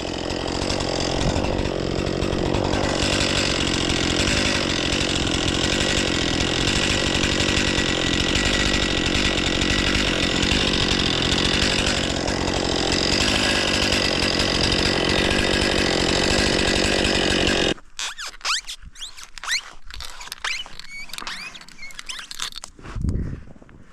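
Stihl 500i two-stroke chainsaw running at high revs and cutting wood. It cuts off suddenly about three-quarters of the way through, leaving faint scattered crackling and crunching.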